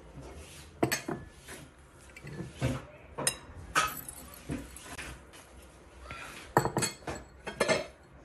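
Metal spoon clinking and tapping against a ceramic plate: about a dozen sharp clinks at irregular intervals, several in quick pairs.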